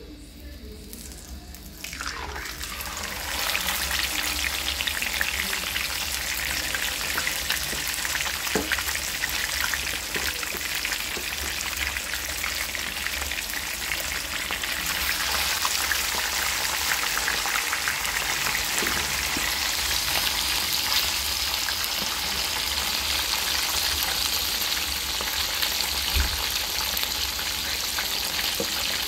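Hot oil sizzling steadily as whole fish are fried in a frying pan. The sizzle starts suddenly about two seconds in, as the first fish goes into the oil, and grows brighter and louder about halfway through, when a second fish is added.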